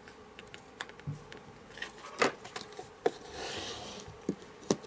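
Card stock being handled and pressed down on a craft desk: a handful of sharp taps and clicks, the loudest about two seconds in, with a short paper rustle a little past the middle.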